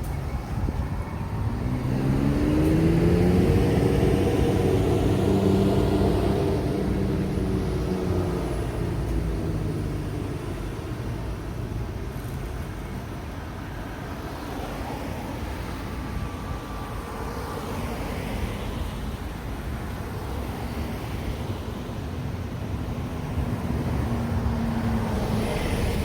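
Road traffic at a crossroads. A motor vehicle passes close by: its engine note rises over the first few seconds, holds, then falls away after about eight seconds. Steady traffic rumble continues, and another engine note comes in near the end.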